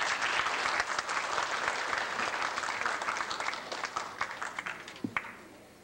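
Audience applauding, a dense patter of many hands clapping that thins and fades out near the end, with a single knock about five seconds in.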